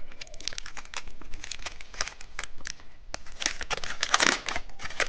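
Plastic candy wrapper crinkling and tearing as it is opened: a dense run of sharp crackles, thickest around the middle.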